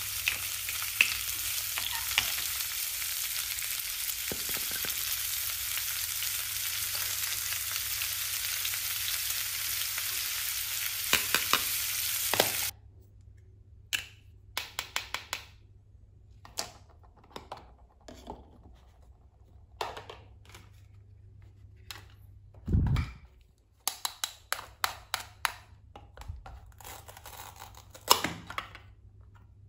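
Steady frying sizzle, with a few clicks of a plastic spoon in a toy pan, stopping suddenly a little before halfway. Then light clicks and taps of plastic toy kitchen pieces being handled, with one dull thump, and near the end the snap of a toy tomato's halves pulled apart by a plastic knife.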